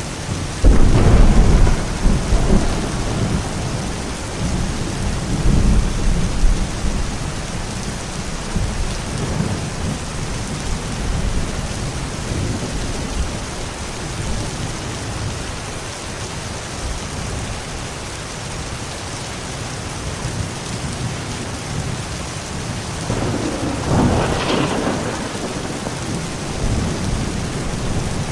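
Steady rain hiss with thunder. A loud clap about a second in rumbles on for several seconds, and a second peal of thunder swells up later.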